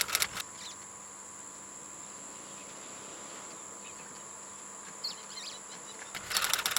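Insects, crickets or cicadas, droning steadily on one high thin note. Short bursts of rapid clicking come right at the start and again near the end.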